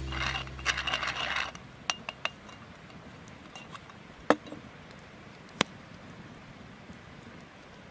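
Background music ends about a second and a half in; then a small metal seasoning tin is handled, giving a few sharp clicks and clinks over a faint hiss.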